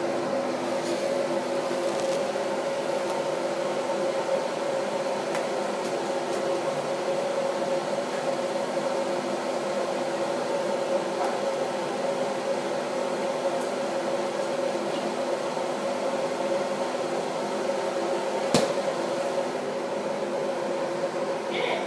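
Steady mechanical hum of a running motor or fan, with a few steady tones, and a single sharp knock about three-quarters of the way through.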